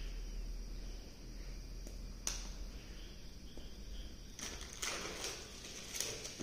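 Plastic wrapping and cardboard packaging of a smartwatch box being torn and handled. There is a single sharp click about two seconds in, then crackling rustles from about four and a half seconds on.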